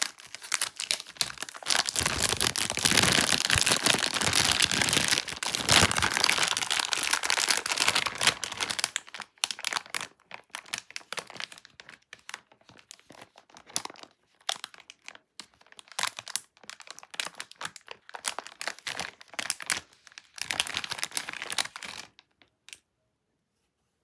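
Plastic candy packaging being crinkled and torn open, a dense run of crackling for about the first nine seconds, then scattered crackles and clicks that stop shortly before the end.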